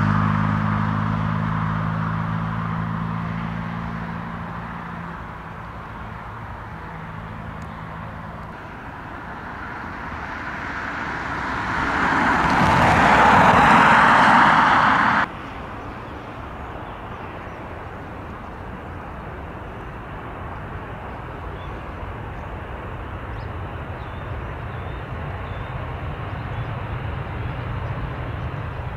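Jet airliner engines at an airport: a taxiing jet's steady hum and whine fades away over the first few seconds. Then another jet's roar swells to its loudest and cuts off suddenly, leaving a low, steady distant rumble.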